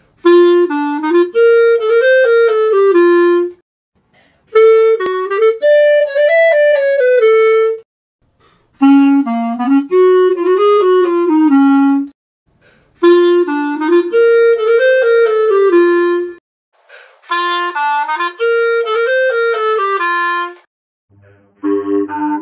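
Clarinet playing the same short melody five times with brief pauses between, each pass run through a different phone voice effect, so some come out higher, lower or thinner in tone. Near the end a robot voice effect begins, turning the clarinet into a coarse, buzzy electronic tone.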